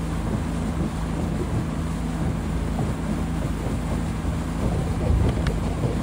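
Small motorboat's engine running at a steady speed, with wind buffeting the microphone and water rushing along the hull as the boat moves.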